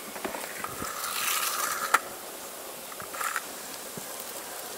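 Camping gear handled by hand: a scraping, rustling pull of about a second that ends in a sharp click, then a shorter scrape a little after three seconds in.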